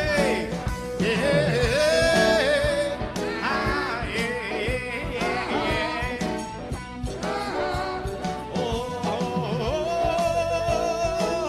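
A song sung with instrumental accompaniment: the voice holds long notes with vibrato over a band with regular drum hits.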